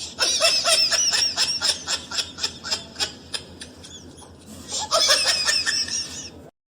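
Very high-pitched laughter in quick repeated pulses, in two bouts: a long one at the start and a shorter one about five seconds in.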